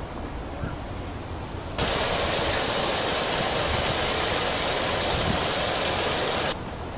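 Steady rush of running water from a shallow reflecting pool, starting abruptly about two seconds in and cutting off suddenly near the end, over quieter outdoor background.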